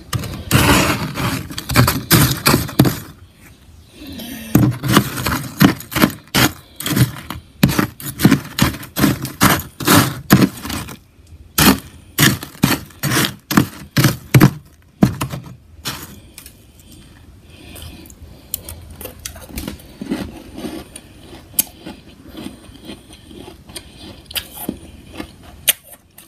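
Freezer frost being scraped and broken loose, a fast run of crunching scrapes for about fifteen seconds, then quieter and sparser scraping.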